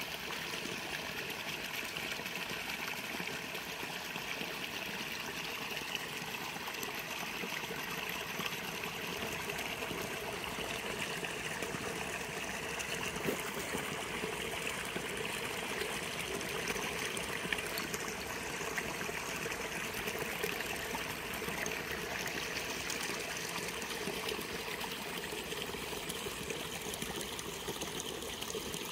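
Water trickling steadily in a shallow irrigation ditch, a constant fine splashing hiss.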